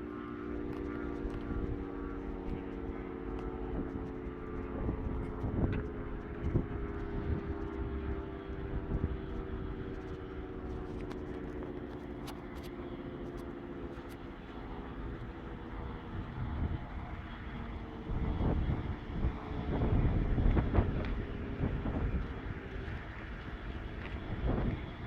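Air-raid-type warning siren, heard from a distance, its wail slowly falling in pitch and fading as it winds down. Irregular low rumbling noise runs underneath and swells loudest about three-quarters of the way through.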